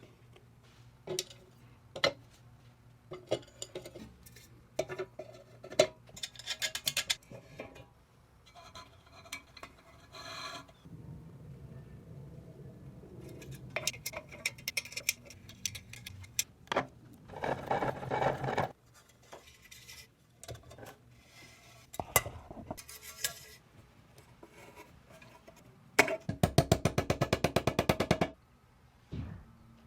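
Oil lamp parts being handled and fitted together by hand: scattered clicks and taps, with stretches of rubbing and scraping. Near the end comes about two seconds of rapid, evenly spaced clicking.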